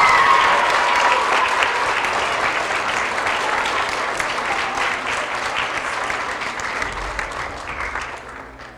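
Audience of schoolchildren applauding, the clapping fading away near the end.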